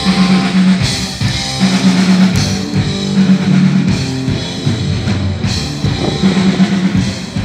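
A live rock band playing, with drum kit and electric guitar over repeated low bass notes.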